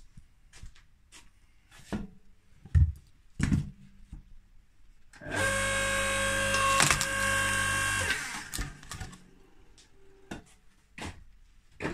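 Knocks of wood being handled on a log splitter. About five seconds in, the splitter's electric motor runs with a steady whine for about three seconds while the ram drives a log into the four-way wedge, with one sharp crack of the wood splitting partway through; a few more knocks follow.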